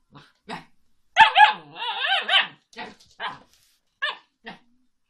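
Husky-type puppy barking in a string of short, arching yips and barks, the loudest pair about a second in, then four shorter ones.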